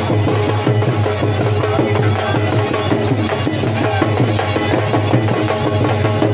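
Loud live traditional folk music: dense, rapid drumming over a steady low drone, with held pitched notes above it.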